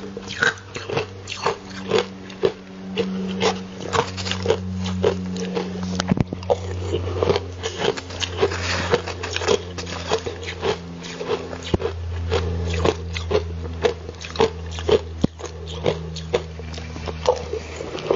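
Ice being bitten and crunched between the teeth, a quick run of crisp crunches at about three a second.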